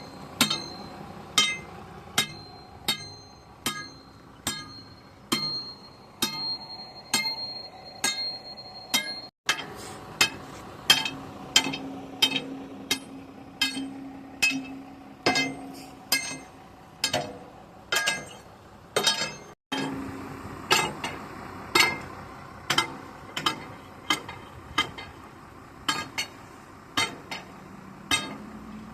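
Sledgehammer blows on a steel excavator bucket pin, struck again and again at an even pace of a little more than one a second, each with a metallic ring, as the jammed pin is driven out.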